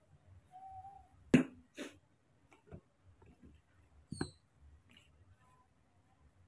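A few scattered sharp clicks and knocks, the loudest about a second and a half in, with a brief faint squeak near the start.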